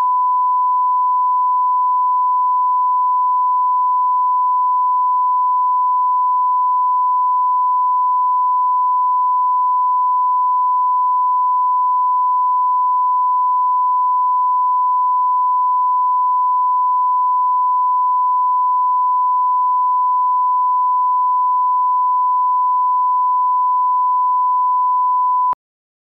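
Television line-up tone: a steady 1 kHz reference tone played with SMPTE colour bars, one unchanging pitch that cuts off suddenly near the end.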